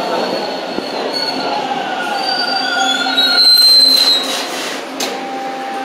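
Bombardier T1 subway train braking to a stop at the platform, its wheels and brakes squealing in several gliding high tones over the running rumble, loudest about three and a half seconds in. A burst of hiss and a sharp click follow near the end as it comes to rest.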